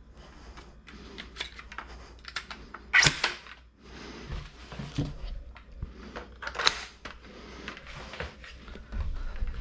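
Toy Kar98k bolt-action foam blaster being handled and fired: small plastic clicks and clacks throughout, with two sharp, loud snaps, about three seconds in and again nearly four seconds later.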